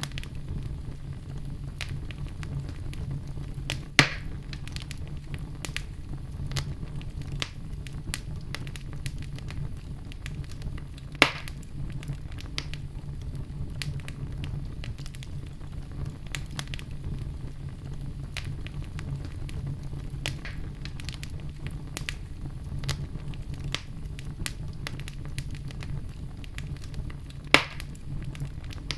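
Wood fire burning with a steady low rumble and a constant patter of small crackles. Three louder sharp pops come through, about four seconds in, near the middle, and near the end.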